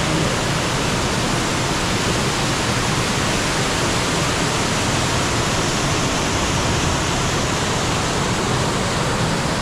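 A mountain waterfall or creek cascade rushing steadily, a loud even wash of falling water.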